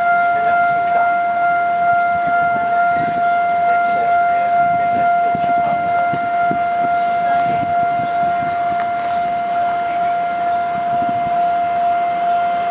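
Taiwan Railway level-crossing warning alarm sounding a steady, unbroken electronic tone, signalling that a train is approaching and the barriers are down.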